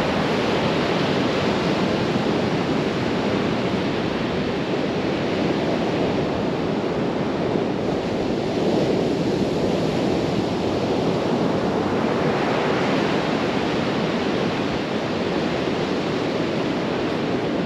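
Ocean surf breaking and washing onto the beach in a steady rush, swelling now and then as waves come in, with some wind on the microphone.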